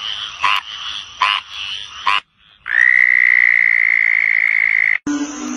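Frogs calling: short croaks about a second apart over a steady hiss, then, after a brief pause, one long, high, steady trill lasting about two seconds.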